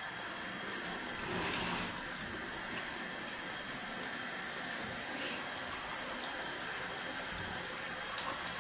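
Curry puffs deep-frying in hot oil in a small pot with a wire basket: a steady bubbling sizzle, with a few light clicks scattered through it.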